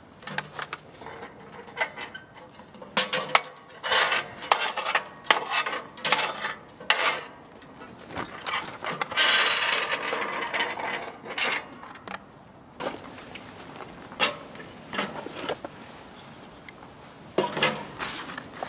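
Metal ash-scraper tool scraping and knocking ash out of a Winnerwell stainless-steel wood stove's firebox into a metal tray: irregular metallic clinks and scrapes, with a longer rasp of ash sliding out about halfway through.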